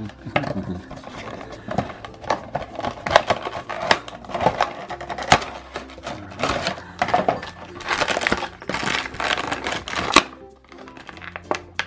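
Clear plastic packaging crinkling and clicking, with cardboard box flaps rustling, as a vinyl figure is slid out of its box and freed from its plastic insert. Light background music plays underneath.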